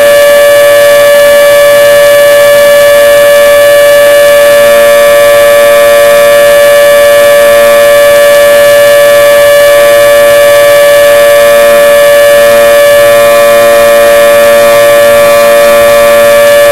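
Federal 2T22 dual-tone electromechanical outdoor warning siren sounding its monthly test: a loud, steady chord that holds its pitch throughout.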